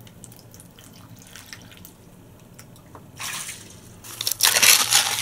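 Water being poured: a short splash about three seconds in, then a longer, louder pour near the end, after a quiet stretch with faint small clicks.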